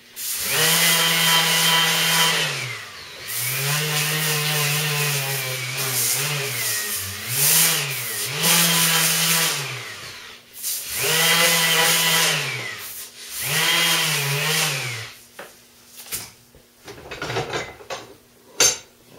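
Small lightweight electric palm sander with a stick-on disc, sanding the tip of a bow limb. It runs in about seven bursts of one to three seconds, spinning up and winding down each time. It stops about 15 seconds in, and light handling clicks and one sharp knock follow.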